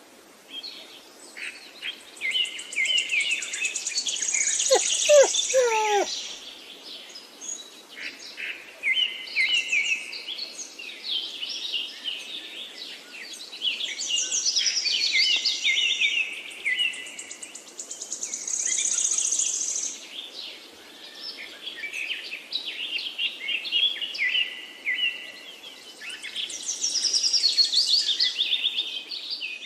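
Several birds chirping and singing, with fast high trills swelling and fading in waves, and a brief lower wavering call about five seconds in.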